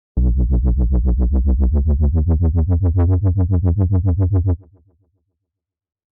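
GarageBand Alchemy synthesizer patch being previewed: a deep bass-heavy synth tone pulsing in a fast, even rhythm, which stops about four and a half seconds in.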